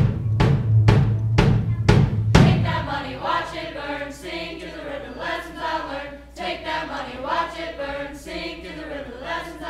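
Steel band with drum kit and bass playing a pop tune: steady drum beats about twice a second over the bass, then about two and a half seconds in the drums drop out and a quieter passage of sustained melody follows.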